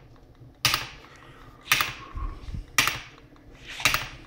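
A small solenoid-powered hit-and-miss model engine running, its solenoid slamming with a sharp clack about once a second, four times. Each clack is a firing that kicks the slowing engine back up to speed.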